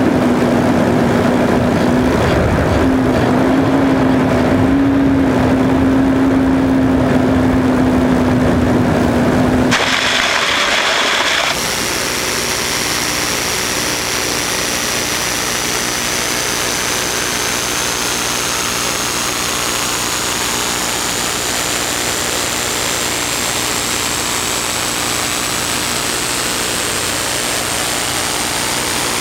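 Airborne FPV glider's onboard audio: rushing air noise with a steady hum while gliding in to land. About ten seconds in it changes to an even hiss with a faint high whine slowly rising in pitch, as the glider sits in the grass after touchdown.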